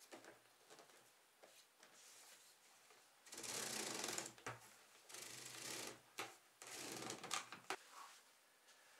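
Flexible corrugated plastic air-conditioner ducts being stretched out and handled, giving a faint crinkling rattle in three short bursts around the middle.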